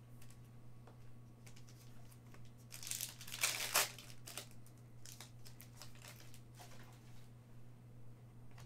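Plastic wrapper of a Panini Prizm trading-card pack crinkling as it is handled and opened by hand, in scattered crackles with a denser burst about three seconds in, over a steady low hum.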